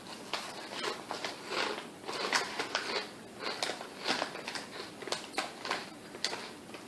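A person chewing kettle-cooked potato chips with the mouth close to the microphone: a string of irregular crisp crunches.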